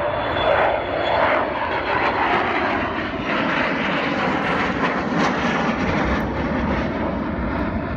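Avro Vulcan XH558 delta-wing bomber flying low past, its four Rolls-Royce Olympus turbojets giving loud, steady jet noise that eases slightly near the end.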